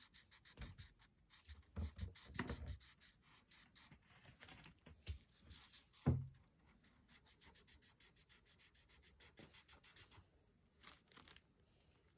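Faint scratching of a liquid chalk marker's tip on a coloring board in many quick short strokes, with a single louder thump about six seconds in.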